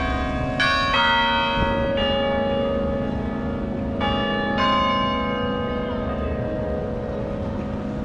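Bells of an open-frame memorial bell tower ringing: bells of different pitches struck one after another, each note left to ring on and overlap the next. There are two strikes in the first second, one about two seconds in, and two more around four seconds in.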